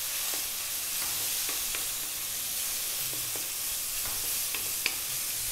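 Mushrooms, onion and garlic sizzling in oil in a wok on high heat, stirred with a wooden spatula that clicks and scrapes lightly against the pan, with one sharper tap near the end.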